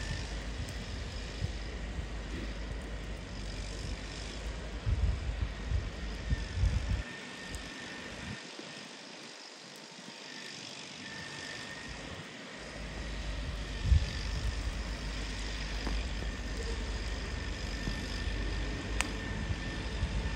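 John Deere 318 garden tractor running at a distance with its front snowblower throwing snow: a steady engine drone with a faint whine on top. A low rumble under it drops away for a few seconds in the middle.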